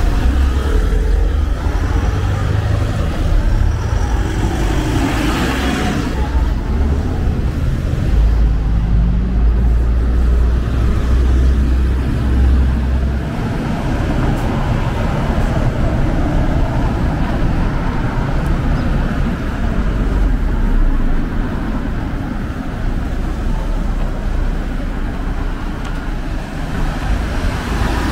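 Road traffic on a city street: cars and a bus passing close by, a steady wash of engine and tyre noise with a deep rumble that is heaviest in the first half and eases about halfway through.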